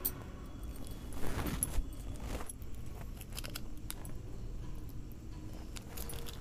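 Thin plastic ice-pop packets being handled while their mouths are folded and sealed: rustling and crinkling, loudest for about a second between one and two and a half seconds in, with scattered light clicks and jingles.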